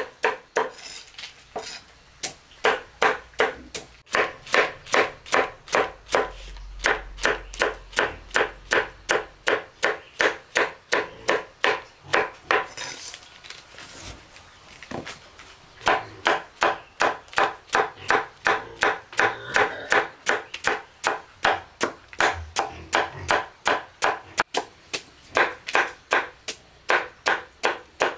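Chopping with a blade on a wooden board, quick even strokes about three or four a second, with a pause of a few seconds about halfway through.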